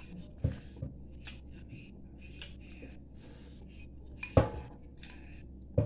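Chopsticks clicking against a glass bowl of ramen noodles: about four sharp clinks, the loudest about four seconds in, with soft chewing between them.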